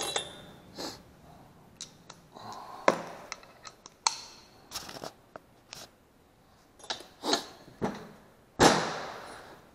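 Scattered clinks, knocks and scrapes of hand tools being picked up and a socket wrench being fitted onto a rocker stud of a Honda GXV160 cylinder head, with a louder clatter near the end.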